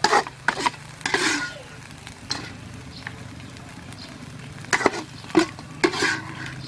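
Metal spatula scraping and knocking against a wok of sizzling sauce, in a handful of separate clanks and scrapes spread through, over a steady low hum.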